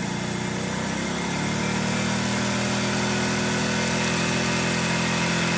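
Vintage Honda twin-cylinder motorcycle engine revved up and held steady at about 5,000 rpm. It gets louder over the first couple of seconds, then holds an even running note.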